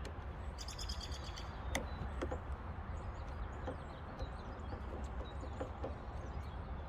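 Birds chirping, with a quick high trill about half a second in, over a steady low rumble, with a few light clicks.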